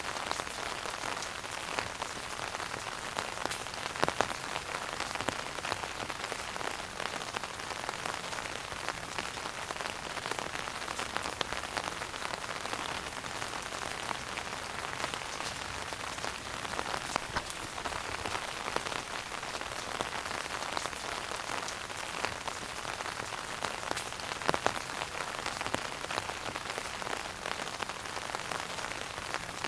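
Wood fire burning in a fireplace, crackling steadily: a dense hiss of small crackles with a few louder pops, one about four seconds in and another near twenty-five seconds.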